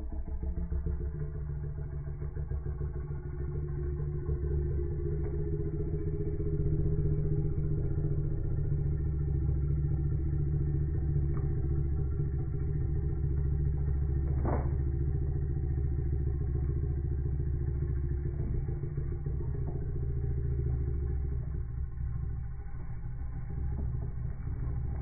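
Steady low mechanical drone, like an engine running, with one sharp click about halfway through.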